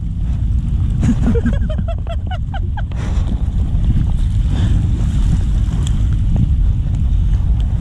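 Strong wind rumbling on the microphone over the wash of the sea, steady throughout; a short voice is heard between about one and three seconds in.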